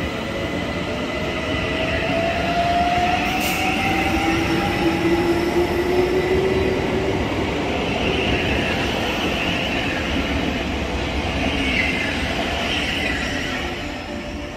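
Class 700 and Class 378 electric multiple units running past on neighbouring tracks, with a steady rumble of wheels on rail. In the first seven seconds two rising motor whines come in one after the other, typical of electric trains pulling away, and the sound fades near the end.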